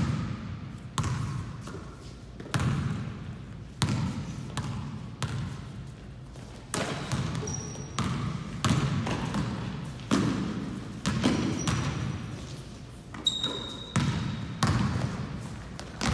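Basketball bouncing on an indoor gym court, sharp echoing bounces roughly once a second that come a little faster in the second half, with a few brief high squeaks.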